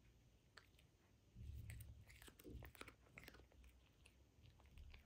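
A cat biting and chewing blades of cat grass: faint, crisp crunches and clicks, busiest between about one and a half and three and a half seconds in.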